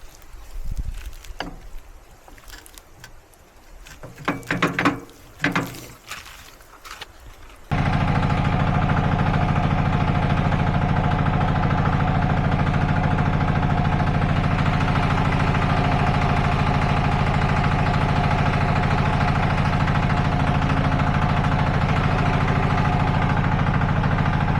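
Scattered metal knocks and clanks from work on the mini skid steer's track and idler wheel, then, about eight seconds in, the machine's engine is suddenly running at a steady speed and stays loud and even.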